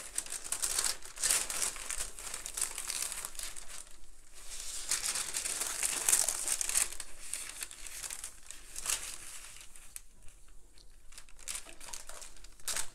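Tissue paper crinkling and rustling as hands fold it back, in irregular handfuls that ease off briefly about ten seconds in.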